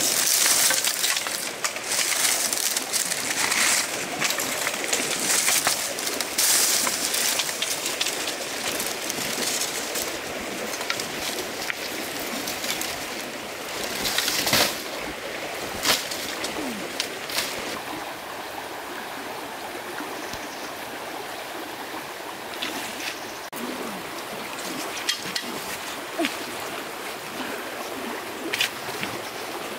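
Water running and splashing, as in a forest stream, louder and more splashy in the first several seconds and steadier afterwards, with a couple of sharp knocks about halfway through.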